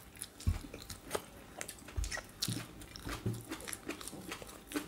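Close-up eating sounds of a mukbang: people biting and chewing food, with scattered short clicks and a few soft low thumps.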